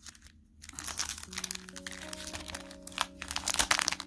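Crinkling of a clear plastic sleeve and paper as the packaging is handled, starting about a second in, with background music of soft held notes coming in just after.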